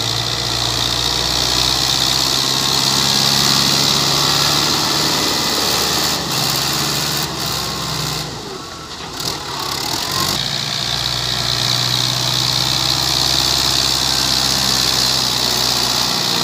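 Fiat 640 tractor's diesel engine running steadily under load, with a steady hiss over it. The sound drops abruptly about eight seconds in and changes back about two seconds later.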